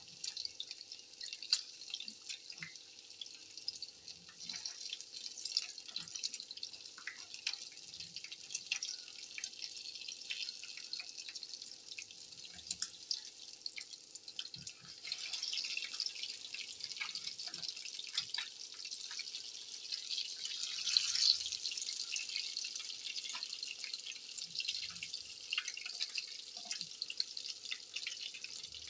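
Battered fish pieces shallow-frying in hot oil: steady sizzling with constant crackling pops, swelling a little about halfway and again about two-thirds in. A few soft low knocks come from the metal turner against the pan as the pieces are turned.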